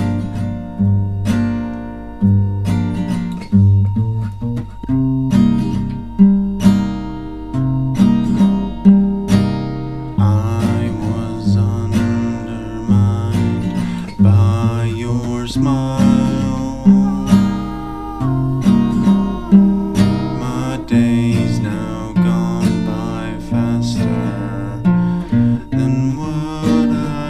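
Acoustic guitar played with picked chords. A soft singing voice comes in over it about ten seconds in.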